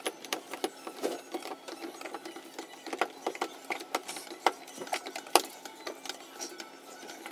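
A screwdriver driving screws into a doorknob: a quick, irregular run of clicks and scrapes, several a second.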